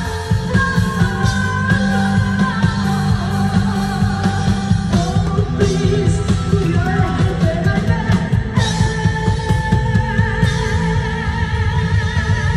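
Live band playing a rock-style song: a drum kit played hard with cymbals and an electronic keyboard, with a singer's voice over it holding long notes.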